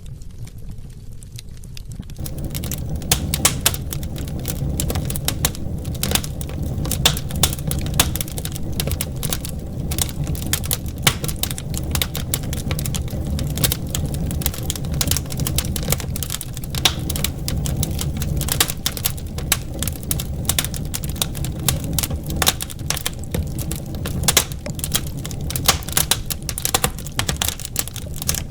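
Wood fire in a fireplace crackling and popping with dense, irregular snaps over a steady low rumble; the crackling sets in about two seconds in.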